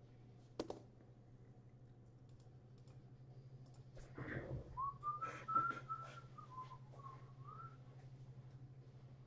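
A person whistling a short wavering tune for about three seconds, starting about five seconds in, over a faint steady low hum. A sharp click comes about half a second in, and a few clicks fall during the whistling.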